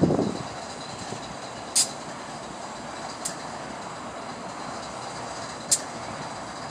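Freight train cars rolling by: a steady rolling noise with a thump at the very start and three sharp clicks about two, three and a half, and six seconds in.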